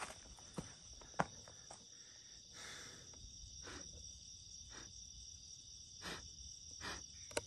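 Steady, high-pitched chorus of night insects, crickets, with a few soft knocks and footsteps scattered through it.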